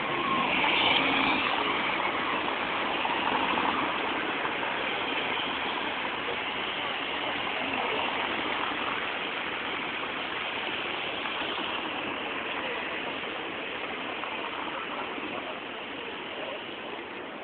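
Steady street noise of passing road traffic, loudest about a second in and then slowly fading.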